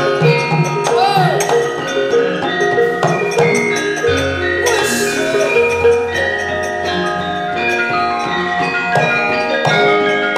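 Javanese gamelan playing for a wayang kulit performance: bronze metallophones ring in quick stepped melodic notes. A deep gong-like note enters about four seconds in, and a sharp metallic crash comes just after it.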